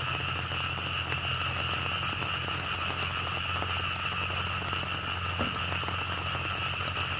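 Yanmar F215 tractor's diesel engine idling steadily, with a steady high-pitched chorus of frogs from the flooded paddy above it.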